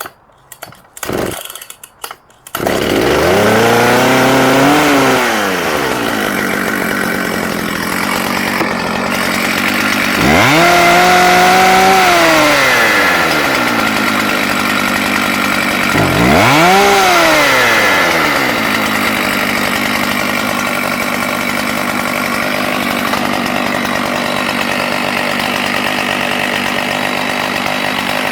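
Dolmar PS6400 64cc two-stroke chainsaw starting up about two and a half seconds in. It is revved three times, each time rising in pitch and falling back, with steady idling in between.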